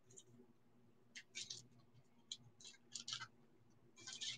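Faint, scattered light clicks of a chunky beaded necklace being handled and fastened at the neck, in otherwise near silence.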